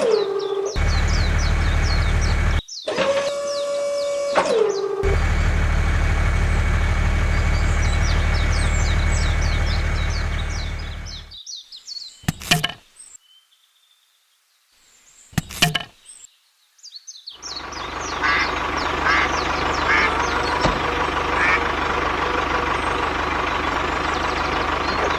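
A steady low engine-like drone, joined twice near the start by a horn-like tone that is held and then slides down in pitch, over birds chirping. Midway it cuts out for several seconds of near quiet broken by a couple of sharp clicks, then a steady rumble with birds returns.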